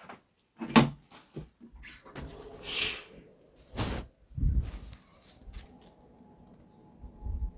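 A series of sharp knocks and clicks with a short rush of hiss between them, like something being handled and opened. About six seconds in, a faint steady tone sets in.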